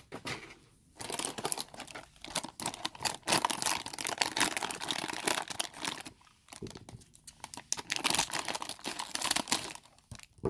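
Blind-bag packaging crinkling and tearing as it is pulled open by hand, in crackly spells with short pauses, one about six seconds in.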